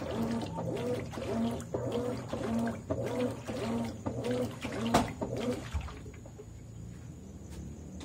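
Consul 13 kg top-load washing machine agitating: the agitator swishes the clothes back and forth through the water at about two strokes a second, with a gurgling slosh on each stroke. The agitation stops about three-quarters of the way through, leaving a faint steady hum.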